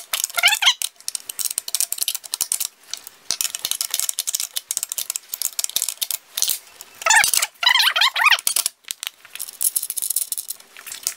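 A wrench turning a nut on a steel threaded rod: rapid metallic clicking and rattling, with two stretches of squeaking at the start and about seven seconds in.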